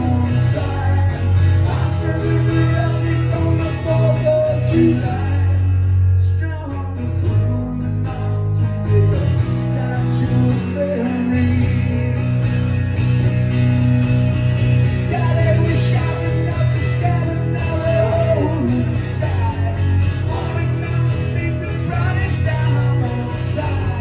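Live acoustic rock: an acoustic guitar strummed over electric bass, with a man singing at times, heard from the crowd in a small club.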